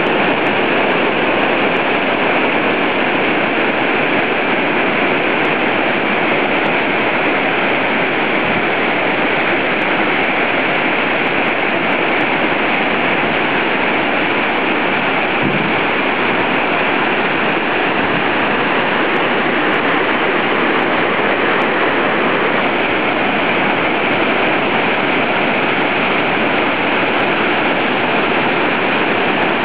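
Mountain torrent rushing, a loud and steady noise of fast white water.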